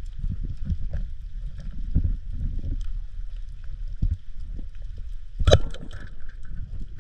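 Water churning and surging in shallow surf, heard underwater as a low, uneven rumble. A single sharp knock with a brief ring comes about five and a half seconds in.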